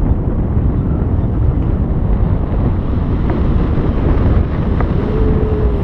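Wind buffeting the microphone in free flight under a paraglider wing: a loud, steady low rumble of rushing air.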